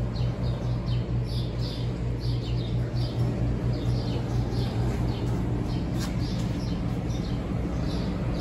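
A bird chirping repeatedly in quick short notes, several a second, over a steady low hum.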